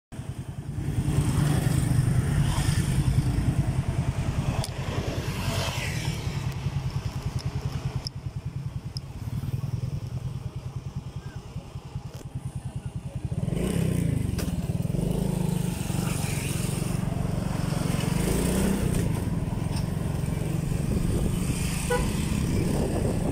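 Motorcycle engine running while riding, picked up by a phone mounted on the handlebars; the engine gets louder about halfway through and holds there.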